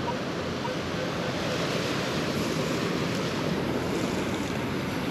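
Ocean surf washing steadily.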